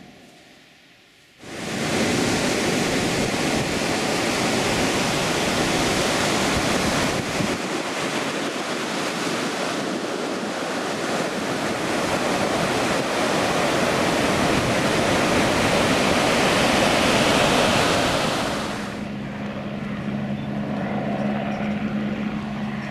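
Surf breaking on a sandy beach with wind buffeting the microphone, a loud, even rush that starts suddenly a second and a half in. About four seconds before the end it gives way to a quieter steady low engine hum.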